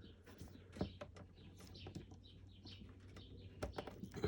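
Electrical wires being pushed and tucked into a wall box: faint scraping, rubbing and small clicks of plastic-sheathed wire and connectors, with a couple of sharper ticks near the end.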